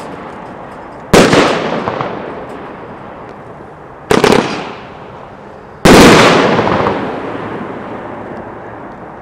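Shots from a 500 g, 15-shot Captain Spaulding consumer firework cake: three loud bangs, about a second, four seconds and six seconds in, each followed by a long echoing rumble that dies away slowly.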